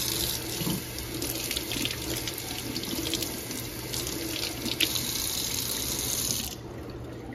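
Kitchen faucet running into a stainless steel sink as a cucumber is rinsed under the stream. The water shuts off near the end.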